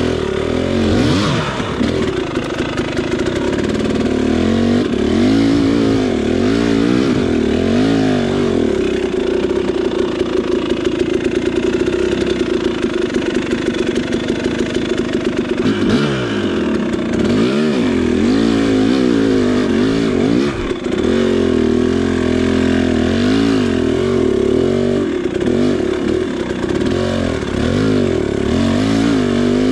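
KTM 300 two-stroke dirt bike engine revving up and down almost constantly under short throttle blips, being ridden slowly over rough, rocky trail.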